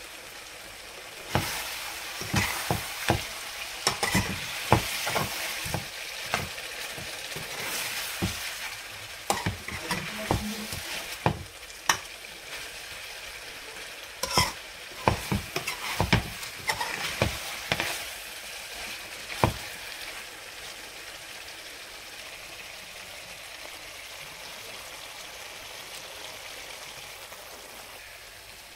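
Chicken pieces in a thick masala sizzling in a frying pan while a spatula stirs them, scraping and knocking against the pan many times. The stirring stops about two-thirds of the way through, leaving a steady sizzle.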